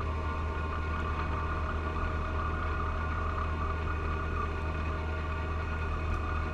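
John Deere 1025R compact tractor's three-cylinder diesel engine running steadily, driving a 54-inch front-mount snowblower through heavy wet snow. A constant drone with a low hum and a steady higher whine over it.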